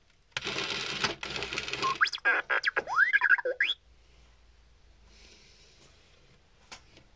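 R2-D2 droid toy sounding off: a buzzing whirr for about a second and a half, then a quick string of electronic chirps and whistles sliding up and down in pitch, ending a little under four seconds in.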